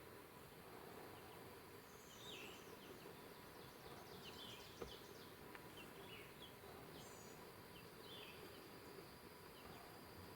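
Faint high chirps and short trills of small songbirds, several separate phrases, over a quiet woodland hiss, with one faint click about halfway through.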